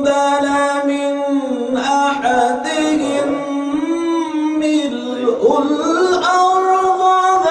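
A man's solo voice reciting the Quran in melodic chant (tajwid-style tilawah), holding long notes with winding ornamental turns of pitch. The melody climbs higher about two-thirds of the way through.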